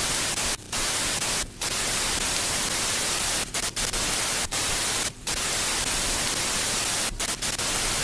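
Television static: a steady hiss of white noise, broken by brief dropouts at irregular moments, several in quick succession near the end.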